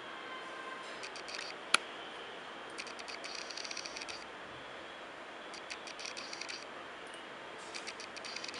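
A single sharp click of a computer mouse a little under two seconds in, among several short bursts of fine, rapid ticking over a steady hiss.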